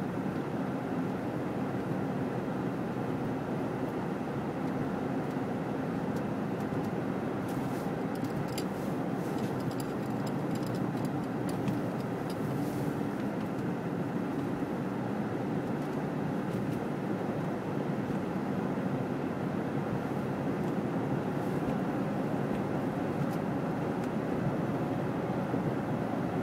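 Car driving at speed on a snow-covered highway, heard from inside the cabin: a steady drone of tyres and engine with a faint hum, and scattered light ticks around the middle.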